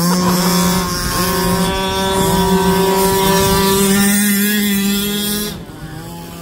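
Small two-stroke petrol engine of a 1/5-scale RC truck running at high revs. Its pitch holds steady and edges slightly upward, then it backs off briefly near the end before picking up again.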